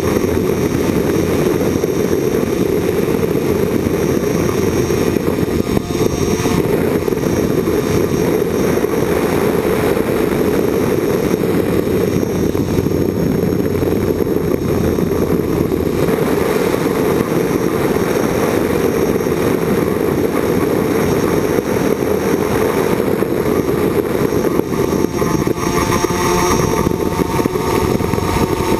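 Small quadcopter drone's motors and propellers heard from its onboard camera: a loud, steady whirring rush, with a motor whine coming in near the end as the drone manoeuvres.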